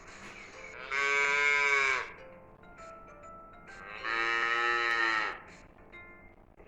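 Recorded cow mooing: two long moos of about a second each, the second a little longer, each dropping in pitch as it ends.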